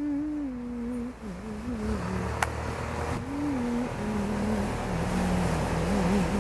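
A person humming a slow, wandering tune in a low voice. A low engine rumble comes in about two seconds in, and there is a single sharp click shortly after.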